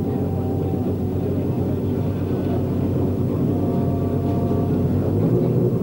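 Racing car engines running, a steady low rumbling drone.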